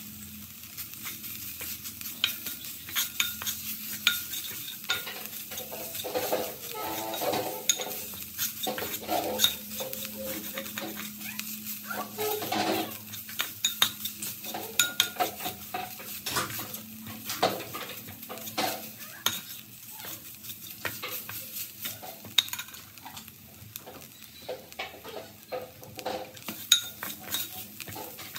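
Metal spoon stirring and scraping a crumbly spiced mixture around a nonstick pot, with many quick scrapes and clicks of metal on the pan. A light sizzle of frying runs underneath.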